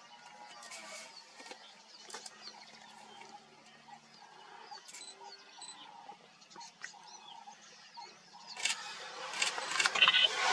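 Black-backed jackal gnawing on a leopard tortoise carcass: irregular crunching and clicking of teeth on shell and bone, louder and denser near the end.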